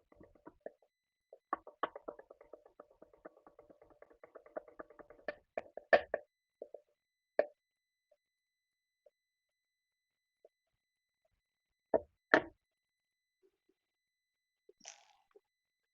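Hand tools working on a motorcycle engine: a rapid run of light clicking for about six seconds, then single sharp metallic knocks, two of them close together about twelve seconds in.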